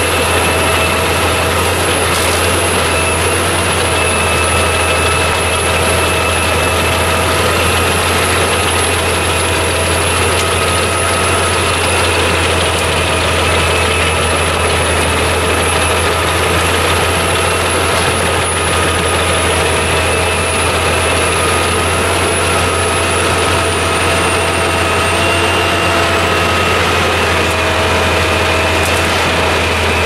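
850 hp Albach Diamant 2000 wood chipper running steadily at working speed while whole trees are fed into it, a loud, even machine drone with a deep hum and a high whine that sags lower towards the end.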